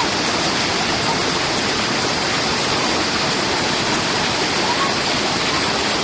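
Waterfall rushing steadily, water pouring over rock ledges and plunging into a pool.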